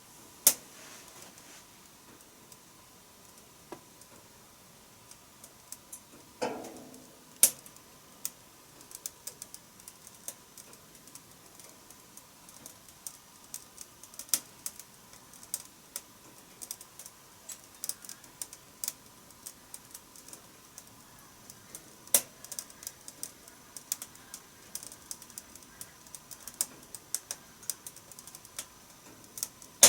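Wood fire crackling in a wood-burning stove: irregular sharp clicks and snaps, with a few louder pops.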